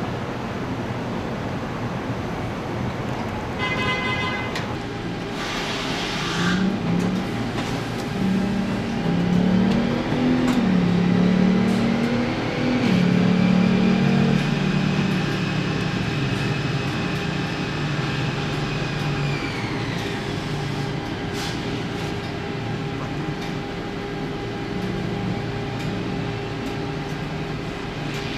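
Toyota Mirai fuel-cell car's electric drive and tyres running on the rollers of a chassis test stand: a whine rises, holds and falls away about twenty seconds in, over a steady factory machine hum.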